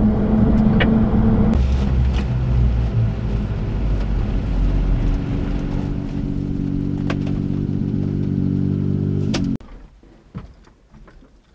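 A Japanese mini truck's 660cc three-cylinder engine running, heard from inside the cab as it drives and then pulls in. The engine is switched off about nine and a half seconds in, followed by a few faint clicks.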